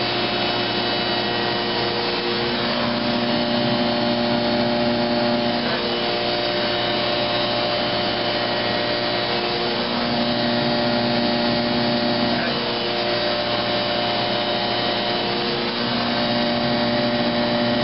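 Rietschle air compressor and Gast vacuum blower of a soil vapor extraction system running steadily: a constant machine drone with several steady whining tones layered over it.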